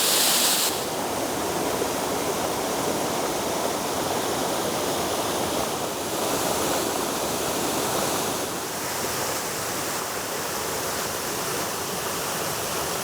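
Waterfall: a steady rush of falling water, a little louder in the first second.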